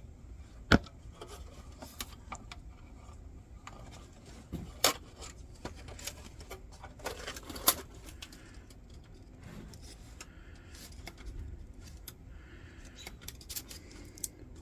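Small metal clicks and scrapes as a tool works on the thin steel frame of an antique folding candle lantern, opening up the channel that holds the mica window. A few sharp clicks stand out, the loudest about a second in and others near five and eight seconds, over quiet rubbing.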